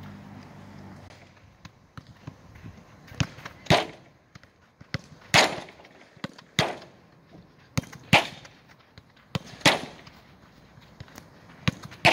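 A football struck repeatedly during ball-skill training: about six loud, sharp thuds of the ball a second or two apart, with lighter taps in between, starting a few seconds in.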